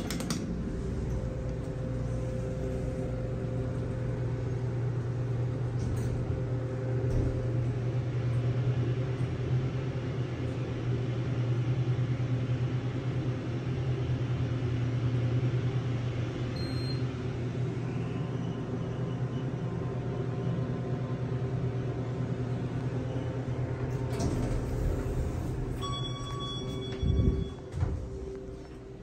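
Kone Series 220 hydraulic elevator running: a steady low hum while the car travels, then an electronic chime near the end, followed by a few knocks and a rumble as the doors open.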